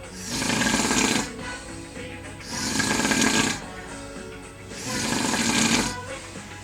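A man snoring loudly in a steady rhythm: three long, rasping snores about two seconds apart, with quieter stretches between them.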